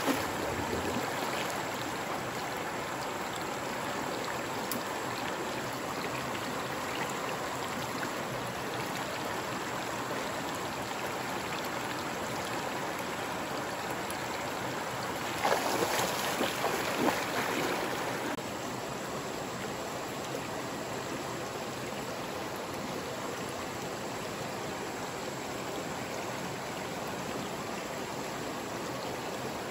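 Shallow rocky stream running over small rapids, a steady rush of water. About halfway through, a couple of seconds of louder water splashing.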